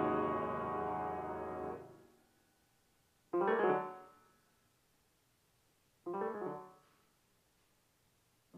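Solo piano playing slowly: a loud chord rings and fades away over the first two seconds, then after a pause come short, quieter phrases about three seconds apart, the last starting at the very end.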